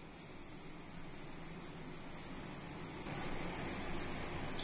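A cricket chirping steadily: a high, pulsing trill of several pulses a second.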